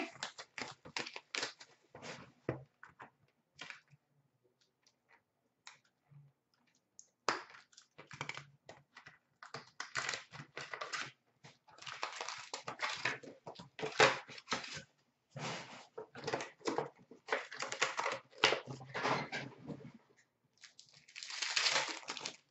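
Hockey card packaging being opened by hand: irregular bursts of crinkling, crackling and tearing of pack wrappers, with rustling and clicking of cards being pulled out and handled.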